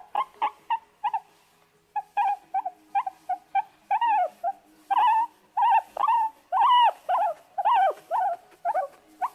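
Rat squeaking: a quick run of short, high squeaks, about three a second, some rising and falling in pitch, with a brief pause about a second in.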